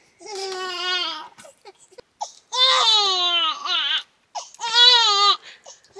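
Baby crying: three high, wavering wails with short breaks between them, the second and third falling in pitch.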